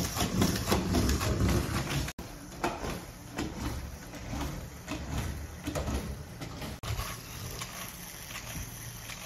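A LEGO Mindstorms EV3 robot running, its motor driving plastic Technic gears and rowing arms with a busy clatter of rapid clicks and rattles. The sound cuts out briefly twice.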